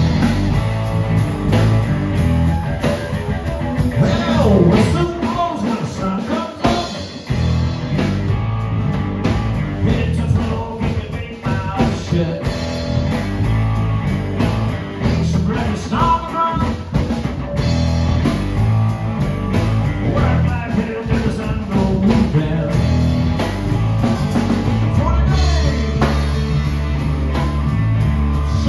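Live blues-rock band playing: electric guitars over a drum kit and a steady low end, with a lead guitar line bending notes up and down a few seconds in.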